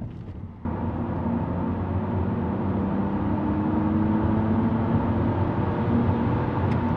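BMW E46 325i's straight-six engine and road noise heard from inside the cabin while driving. The sound steps up abruptly about half a second in, then runs steadily, with an engine tone that rises gently.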